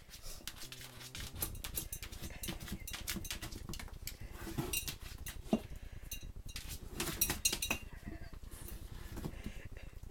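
Scattered light clicks and clinks of a glass jar knocking on a terrazzo floor as a whippet noses at it.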